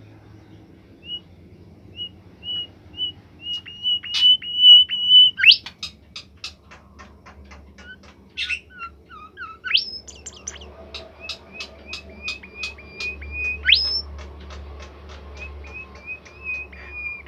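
Bimoli songbird singing: runs of short, even whistled notes that quicken into a held whistle, each run ending in a sharp rising sweep. Between runs come quick series of clicking notes, about four a second.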